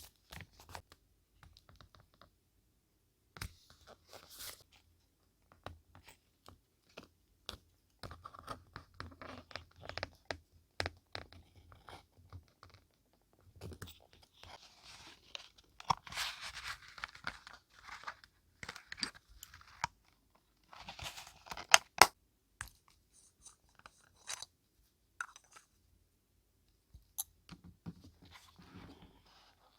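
Paper being handled for journaling: rustling and crinkling with many small sharp clicks and taps, a longer rustling stretch around the middle, and two sharp clicks soon after it.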